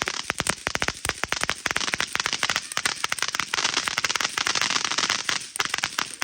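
A string of firecrackers going off: a rapid, continuous run of sharp pops that thins out near the end.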